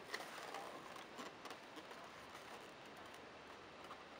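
Faint handling noise from a plastic Polaroid 636 Closeup instant camera being turned in the hand: a few light clicks and rubs over low background hiss.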